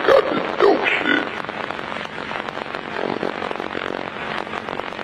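Arena crowd cheering and clapping, a dense crackle of applause with a few short whoops in the first second or so.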